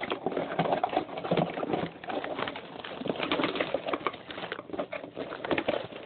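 Packaging being pulled apart by hand: plastic and cardboard crinkling and rustling in a dense run of irregular crackles.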